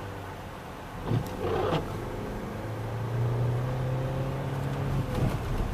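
Car engine pulling uphill under load, heard from inside the cabin, its note rising a little about three seconds in, with a few brief knocks about a second in.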